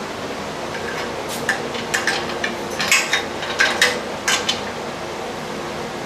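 Irregular sharp metal clinks and knocks of steel hardware and tools (bolts, washers, socket wrench) being handled during the home gym's disassembly, about eight of them, over a steady background hum.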